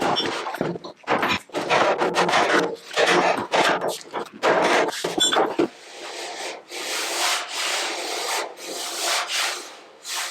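Hand strokes rubbing an abrasive back and forth across the steel bonnet panel over the repaired dent: quick short strokes at first, then longer, smoother ones, the kind of pass used to show up the high and low spots after dolly work.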